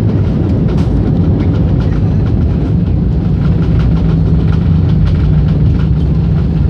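Inside an Airbus A320-family airliner's cabin during the landing: loud, steady rumble of the engines and of the wheels rolling on the runway, with faint light knocks. A low drone grows stronger about three seconds in.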